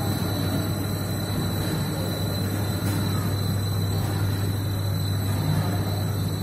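Wire making machine running: a steady, even machine drone with a strong low hum and a thin high whine above it.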